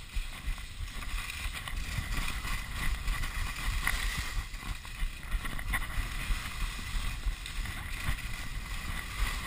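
Skis hissing and scraping over snow during a telemark descent, with wind rumbling on a chest-mounted action camera's microphone.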